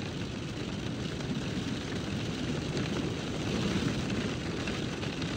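Rain and wet snow falling on the roof and windows of a 2017 Hyundai Tucson, heard from inside the closed cabin as a steady, dense, loud noise.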